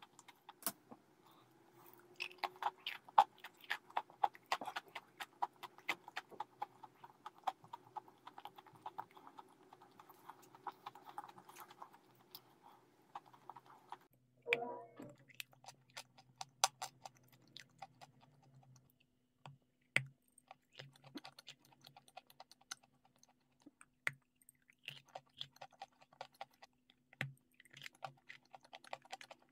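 Close-miked wet mouth sounds of someone chewing clay: dense crisp clicks and crackles that thin out to sparser clicks about halfway through.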